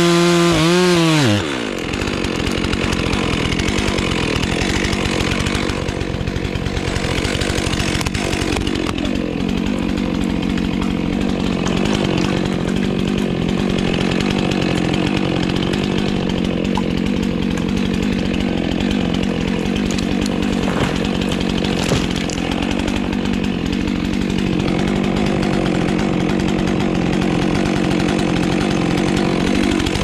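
Stihl MS 400 C chainsaw at full throttle. About a second in its revs fall sharply, then it runs steadily under load in a long cut, and near the end the revs dip and climb again.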